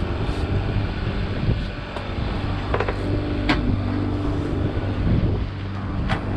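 Fishing boat's motor running steadily, with wind on the microphone and a few sharp clicks about halfway through and near the end.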